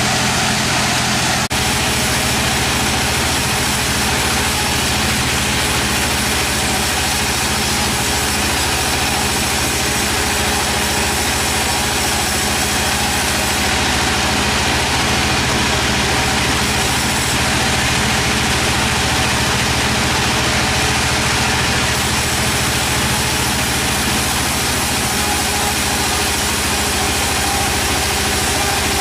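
Sawmill machinery running steadily, a continuous loud engine-like drone with steady low humming tones. It changes abruptly with a click about a second and a half in.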